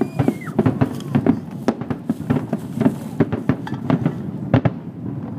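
Fireworks display: a rapid, irregular run of bangs and crackling reports from bursting aerial shells, several a second over a low rumble, thinning out near the end.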